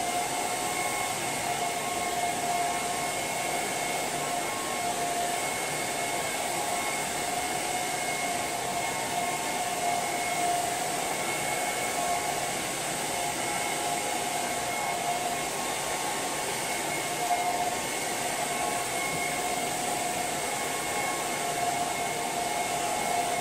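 Handheld hair dryer running steadily, blowing air through hair: a constant rush of air with a steady whine over it.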